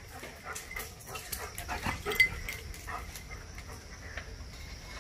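German shepherd puppy scuffling about on a hard floor: scattered clicks and scrapes of its claws and paws, with a sharper knock about two seconds in.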